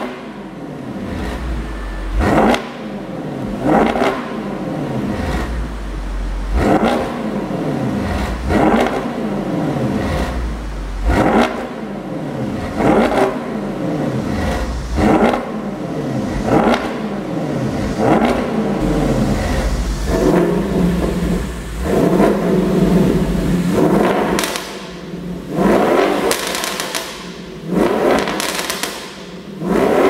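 Audi S6's twin-turbo 4.0 V8 revved repeatedly at a standstill through its stock exhaust, a dozen or so sharp blips about every two seconds, each falling back toward idle. About two-thirds through the revs are held up for a few seconds, and the later blips end in pops on the overrun from a pop-and-bang tune.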